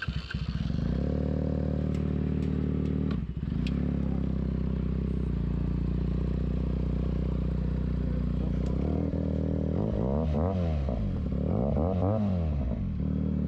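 Benelli TNT 300's 300 cc parallel-twin engine, fitted with an aftermarket SC Project exhaust, is started: the starter cranks and the engine catches about a second in, falters briefly a few seconds in, then idles steadily. Near the end the throttle is blipped twice, the revs rising and falling each time.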